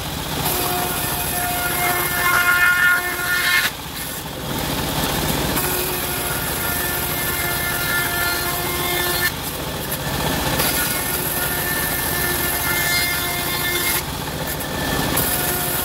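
Homemade bandsaw mill running and ripping a teak plank lengthwise, a steady machine noise with a few steady tones through it. The sound eases briefly three times, about four, ten and fourteen seconds in.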